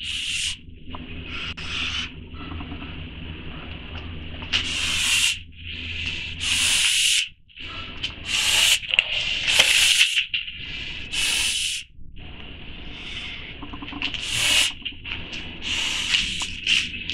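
Canada goose hissing over and over, a string of breathy hisses each about half a second to a second long with short gaps between: a goose's threat display at being approached in its crate.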